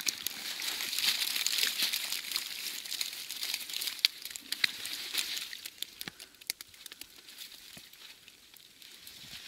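Rustling and crackling of fyke nets full of freshly caught fish being handled on the ice, with many small clicks. It is louder for the first half and thins to scattered clicks near the end.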